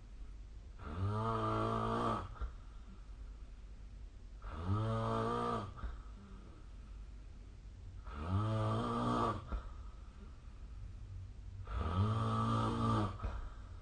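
A sleeping person snoring: four low, buzzing snores, each lasting about a second and a half, coming about every three and a half seconds with quiet breathing between.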